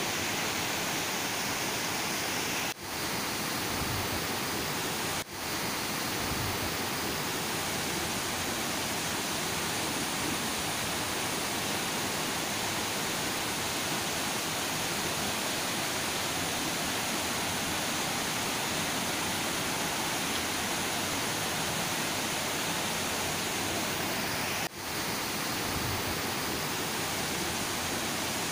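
Fast, muddy river water rushing over rocks in a steady, even wash of sound, which cuts out very briefly three times.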